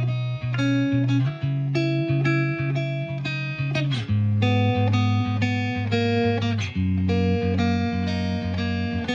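Background music led by plucked guitar, with the chords changing every few seconds.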